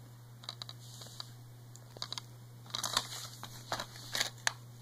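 Plastic DVD case being handled and opened: scattered light clicks and crinkles, busiest around three seconds in and again near the end.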